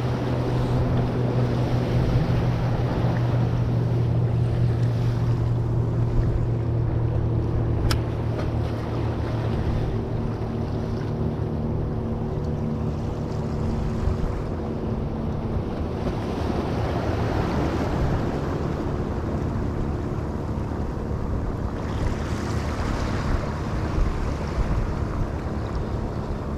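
Waves washing against jetty rocks, with wind on the microphone, under a steady low engine drone that is strongest for the first several seconds. A single sharp click about eight seconds in.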